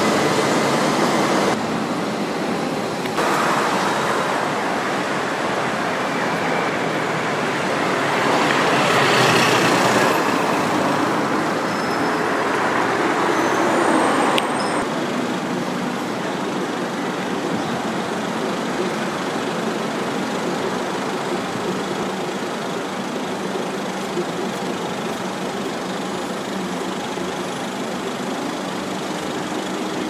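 Steady road traffic noise, an even hiss of passing vehicles that swells about nine seconds in and shifts several times.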